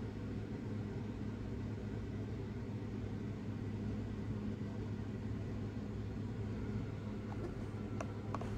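A steady low hum of background machine noise, with a few light clicks near the end as a plastic blister pack is handled.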